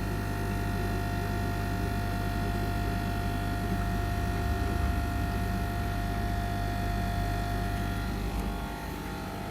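Steady electric hum of running aquarium equipment, a low drone with several constant higher tones over it, easing slightly near the end.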